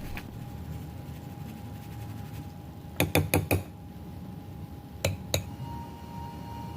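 A utensil clinking against a mixing bowl as dry ingredients are added: four quick taps about three seconds in, then two more a couple of seconds later, over a faint steady hum.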